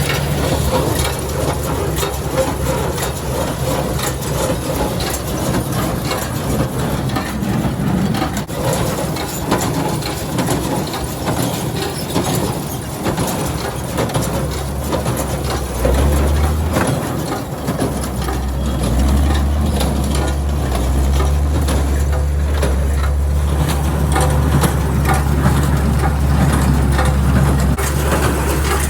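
Tractor engine running steadily under load while a New Holland 316 square baler picks up and packs hay, with continuous rattling and crunching from the baler.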